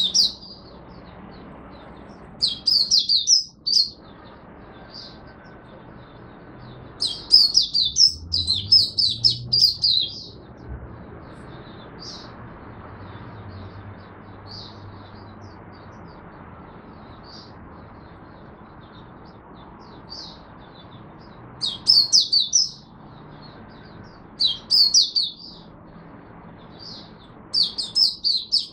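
Caged white-eye (mata puteh) singing in its open song: bursts of rapid, high twittering, the longest about three seconds, repeated several times with pauses of a few seconds between.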